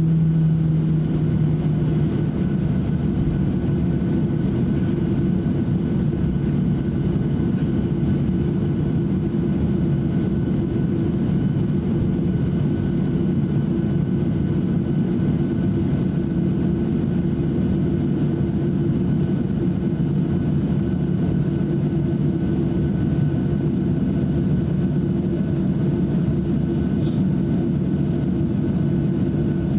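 Cabin noise inside a Boeing 737-800 while it taxis: its CFM56-7B jet engines run steadily at taxi power with a low hum and a faint high whine. A low tone drops away about two seconds in.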